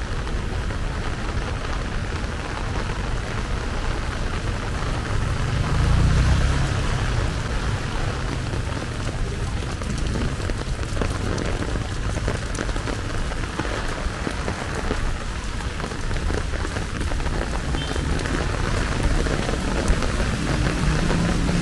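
Steady rain falling, an even hiss, with a low rumble that swells briefly about six seconds in and again near the end.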